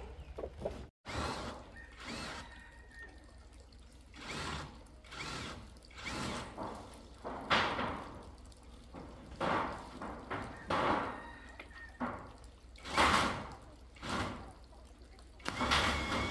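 Irregular knocks and thuds of roof-building work, about ten spread over the span, a few with a brief metallic ring after the hit.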